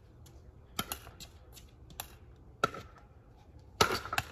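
A pickleball rally: sharp pops of paddles striking a hard plastic pickleball, along with the ball bouncing on the hard court. There are about five hits at uneven gaps, and the loudest comes near the end.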